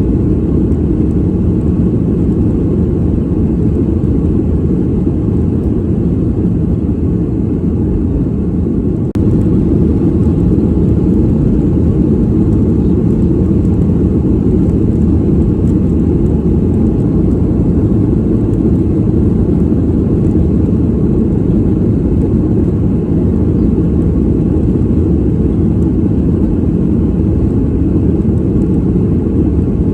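Steady low roar of an airliner cabin in flight, mostly deep rumble with little high hiss. About nine seconds in the level dips briefly, then carries on slightly louder.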